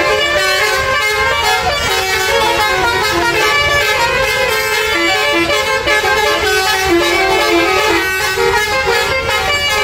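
Several tour buses sounding their basuri musical air horns at once, a loud, continuous tangle of overlapping tunes played in stepped notes.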